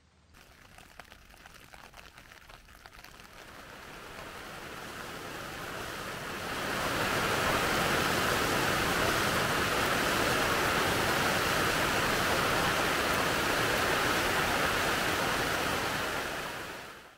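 Steady rain pattering on a tent, a continuous hiss that swells in over the first six or seven seconds, holds steady, then fades out near the end.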